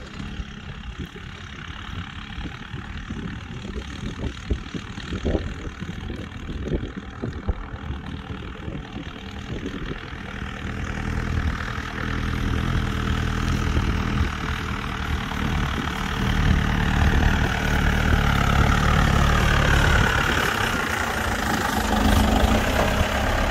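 Modified Willys-style jeep's engine running steadily as it tows a harrow across a field, growing louder as it drives toward and close past the listener.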